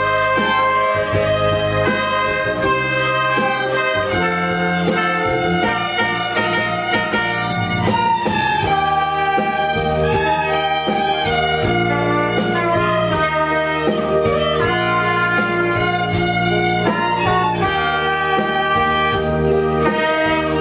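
Student ensemble of violins, woodwinds and brass instruments playing a melody together, with held notes over a steady bass line.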